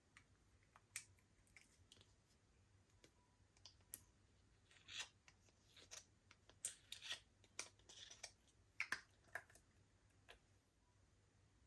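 Faint, scattered clicks, taps and short scratchy scrapes from handling slime and glitter makeup. Most fall between about four and nine and a half seconds in.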